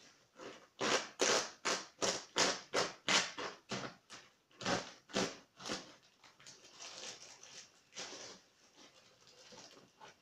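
A plastic mailer bag being torn open and rustled by hand. For about five seconds it makes a rapid run of crinkling, ripping strokes, then settles to softer rustling of plastic and cardboard.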